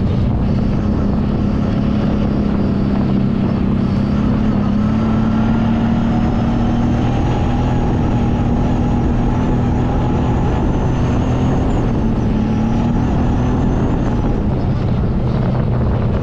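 Kawasaki Brute Force 750 ATV's V-twin engine running at a steady, moderate speed under way on a trail, its pitch drifting only slightly.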